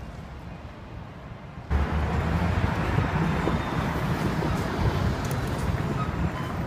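City street ambience: a steady hum of road traffic, stepping up sharply louder about two seconds in.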